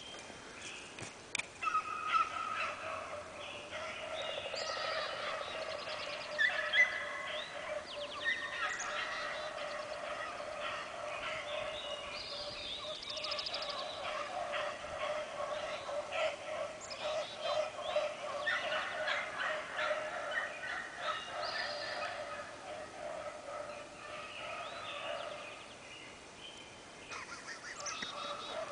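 A pack of beagles baying on a rabbit's trail: many hound voices overlapping without a break, rising and falling in strength.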